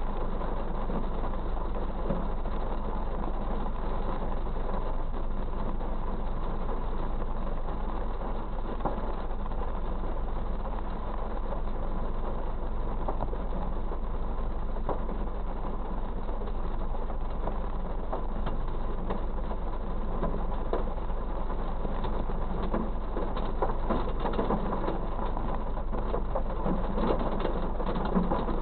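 Rain pattering on a car's windshield and roof, heard from inside through a dashcam microphone, with scattered drop ticks that thicken near the end over a steady low hum.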